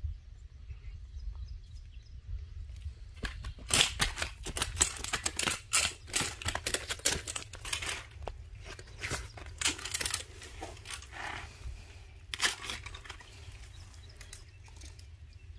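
Irregular crackling and rustling clicks from handling a freshly caught tilapia and the tackle around it while it is unhooked, over a steady low rumble.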